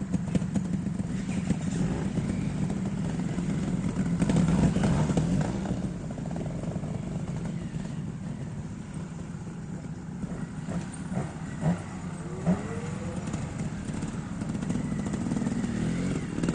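Trials motorcycle engine running at low revs, swelling louder about four seconds in, then easing, with two short sharp blips about twelve seconds in.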